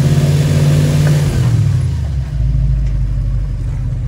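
Airboat engine running loud, its pitch dropping about a second and a half in as it comes off the throttle, then running steadily at a lower pitch.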